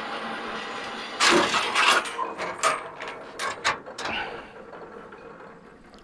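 Frontier OS27 sawmill blade wheel coasting down after its band blade broke: a steady whir, then about a second in a run of loud clattering knocks from the broken blade that come further apart as the wheel slows and die away about four seconds in.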